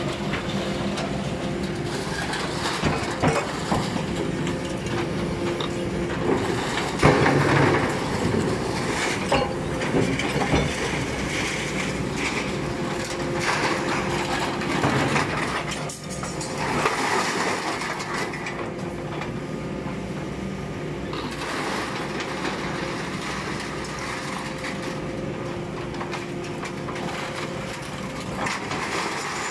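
Loose scrap sheet metal clattering and scraping as an excavator grapple swings it over a hydraulic scrap baler's chamber and drops it in, with irregular metallic crashes. A steady machine hum runs underneath.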